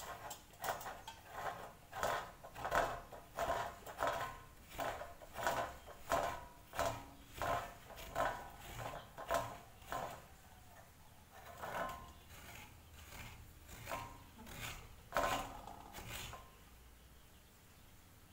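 Coconut being grated by hand against the raised grater rim of a stainless steel plate: rhythmic scraping strokes, about two a second, slowing and stopping near the end.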